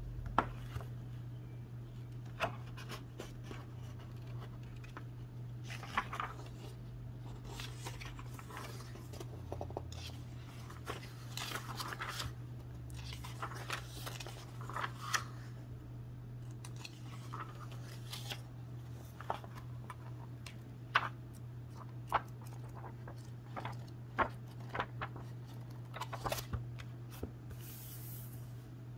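Pages of a large paperback comic book being turned and handled: scattered paper swishes and soft taps against a wooden table, over a steady low hum.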